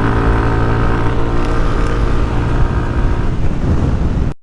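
Yamaha NMAX 155 scooter's single-cylinder four-stroke engine running at a steady cruising speed, with wind rumble on the helmet microphone. The engine note fades toward the end and then cuts off abruptly.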